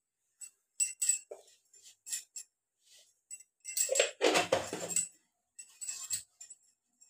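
Scattered light clinks and jingles of steel kitchen utensils and glass bangles, with a louder, rougher clatter lasting about a second around four seconds in.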